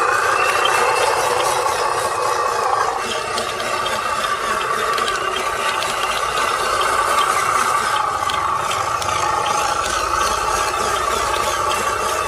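Radio-controlled truck running, its motor and gearbox giving a steady whine with rattling. The pitch drops about three seconds in, then holds.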